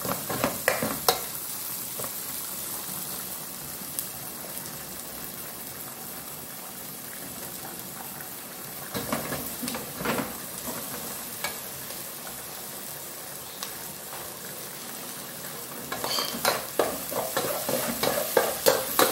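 Chopped onion, green onion and peppers sizzling in hot oil in an aluminium pot as the seasoning is sautéed. A metal spoon scrapes and clinks against the pot as they are stirred, a few times early on and around the middle, then in quick succession near the end.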